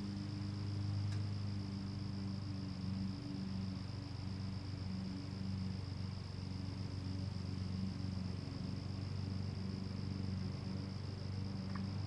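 A distant lawn mower engine running steadily, heard as a low hum that swells and fades a little, with a steady high-pitched insect trill over it.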